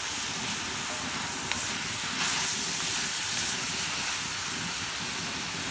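Bok choy sizzling in a hot cast iron wok, a steady hiss of its own moisture and tamari cooking off without oil, with a few light taps and scrapes of a wooden spatula as it is stirred.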